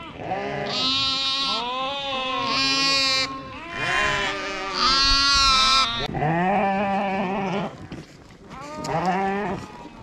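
A flock of ewes and lambs bleating over one another, deep and high calls overlapping almost without pause, with a brief lull about eight seconds in. The ewes and lambs are calling to each other as the lambs are reunited with their mothers.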